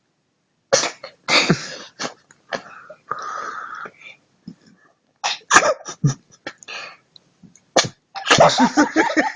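Domestic cat sneezing again and again, a series of short, sudden sneezes a second or so apart. A person's voice comes in near the end.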